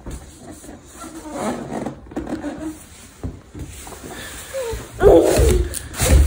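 Toddler squealing and giggling in play, with a loud squeal about five seconds in and a bump near the end.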